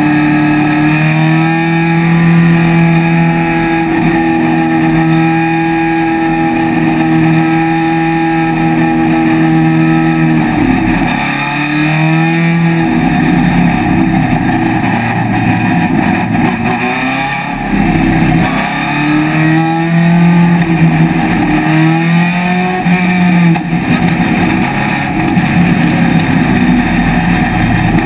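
Vintage open-cockpit race car's engine at full racing speed, heard from the cockpit. It holds a steady high note for about ten seconds, then its pitch drops and climbs again several times as the car slows, changes gear and accelerates through corners.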